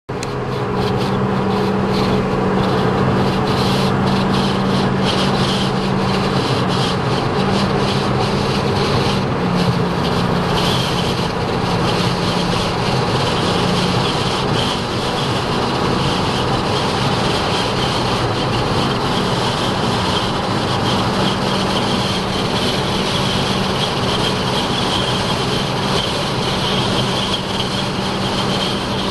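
Steady road and engine noise from a moving car, with scattered sharp ticks through the first half.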